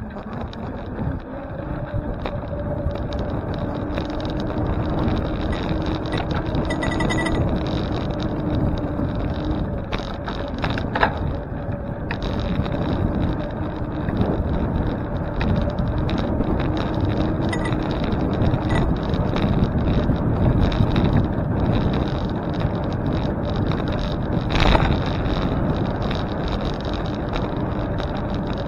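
Riding noise on a moving bicycle: a steady rush of wind and tyre and road noise that builds over the first few seconds, with a faint steady hum. A few knocks come through, the loudest near the end.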